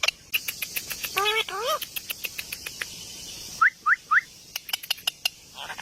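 Parrots calling and chattering: many sharp clicks, two rising, voice-like squawks about a second and a half in, and three quick rising chirps near the middle, over a steady high hiss.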